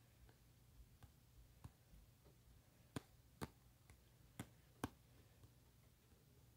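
Faint taps on a phone touchscreen while drawing, a few soft ones scattered early and four sharper taps in quick succession between about three and five seconds in.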